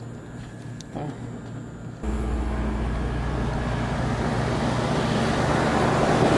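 Air-conditioner condenser unit starting up about two seconds in: a steady low compressor hum and the rush of air from the condenser fan, growing slowly louder as the fan spins up. The unit is running again after its blown capacitor was dealt with.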